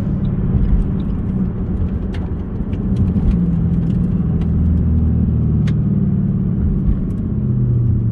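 Ford Mustang's V8 engine running steadily at low revs, a deep low-pitched sound that wavers slightly.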